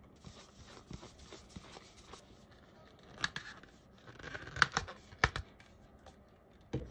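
Hard plastic parts of a 3D-printed resin-draining adapter being handled and fitted onto a resin bottle: faint rubbing, then a few sharp clicks and a short scrape about two-thirds of the way in.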